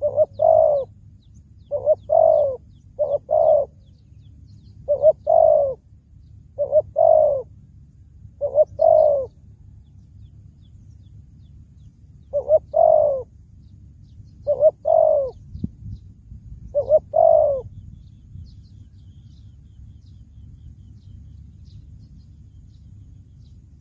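Spotted dove cooing: a run of paired coos, each a short note followed by a longer arched one, repeated every one to two seconds. The coos stop about seventeen seconds in, leaving only low background noise.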